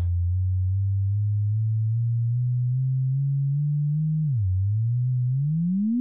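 Pitched riser on a sine-wave synth voice in Logic Pro X's Alchemy synthesizer: a single pure low tone that creeps slowly upward in pitch, dips briefly about four seconds in, then begins sweeping steeply upward near the end.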